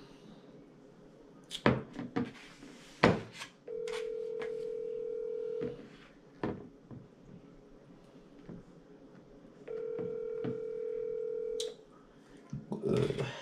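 Phone ringback tone on speakerphone: two steady rings of about two seconds each, about four seconds apart, while an outgoing call waits to be answered. A few sharp knocks come before the first ring.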